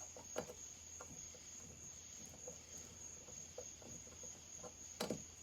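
Faint clicks and taps of small metal chainsaw parts being handled, with a sharper knock near the end, over a steady high-pitched cricket trill.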